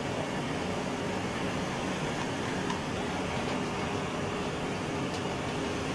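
Handheld electric hair dryer blowing steadily on a dog's fur: a constant rush of air over a faint steady motor hum.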